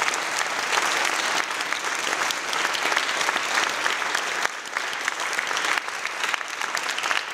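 Wedding guests applauding the newly married couple: dense, steady clapping that thins a little about four and a half seconds in.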